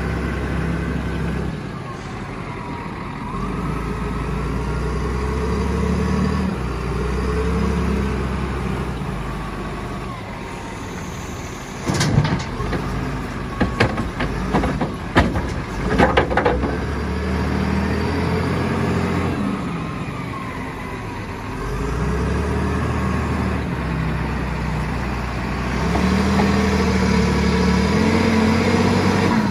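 Volvo wheel loader's diesel engine running and revving up and down in long swells as it works. About halfway through, a run of loud clatters and thuds as a bucket of topsoil is tipped into a steel truck body.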